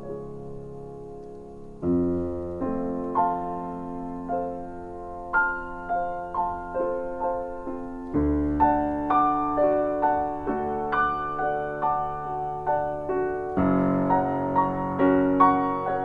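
Solo piano improvising slowly in a classical style. A held chord dies away at first. About two seconds in, a low bass note starts a new phrase of single melody notes, roughly one or two a second, over sustained chords, and fresh bass notes enter again about eight and thirteen and a half seconds in.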